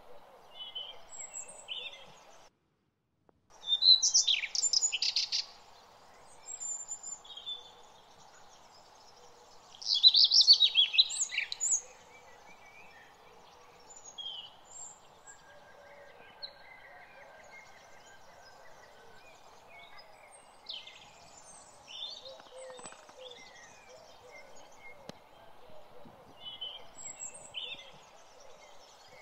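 Small birds chirping and singing in short scattered phrases, with two louder bursts of song about four and ten seconds in, over a steady low background hum. The sound drops out completely for about a second near the start.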